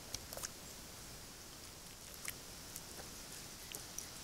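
Faint, scattered small clicks and scrapes of a fillet knife cutting along a northern pike on a plywood board, over a faint steady hiss.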